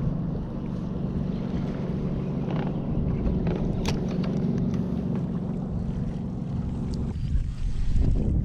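Boat motor humming steadily, then cutting off about seven seconds in, leaving a low rumble of wind and water. A single sharp click sounds about four seconds in.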